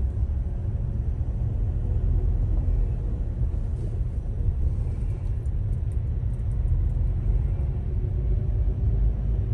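Steady low rumble of a car's engine and tyres heard from inside its cabin while it rolls slowly in traffic.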